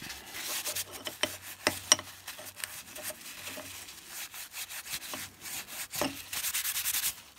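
A wad of paper towel rubbed hard over a steel bar to wipe its freshly cut countersink clean, with a few sharp clicks about a second and a half in. The rubbing grows louder near the end.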